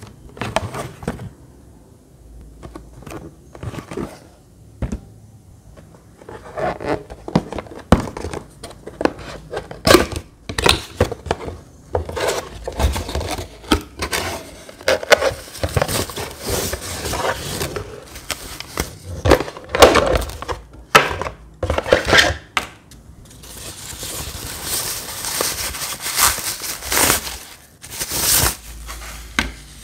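Packaging being handled: a cardboard box opened with its flaps knocking and scraping, and a thin plastic bag crinkling and rustling as the fan is pulled out of it, with a longer stretch of rustling near the end.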